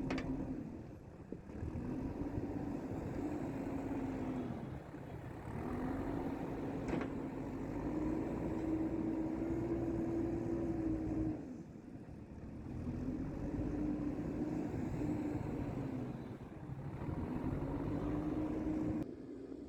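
JCB 3DX backhoe loader's diesel engine working, its note rising and dropping back four times as it comes under load and eases off. There is a sharp click about seven seconds in.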